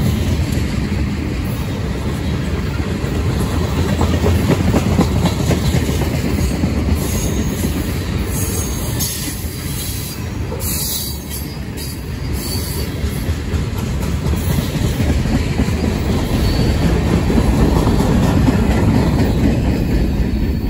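Loaded freight tank cars rolling past close by, with a steady rumble and the clatter of wheels over the rails. Brief wheel squeals come around the middle. The sound grows louder again near the end as diesel locomotives draw alongside.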